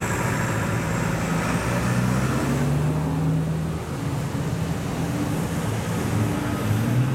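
Ram pickup truck's engine running at low revs as the truck rolls slowly forward, a steady low engine note that swells slightly for a moment about two to three seconds in.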